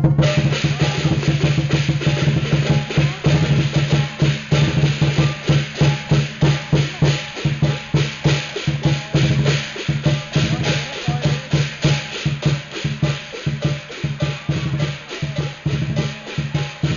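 Lion dance percussion: a large drum beating a fast, driving rhythm with other percussion over it, starting abruptly.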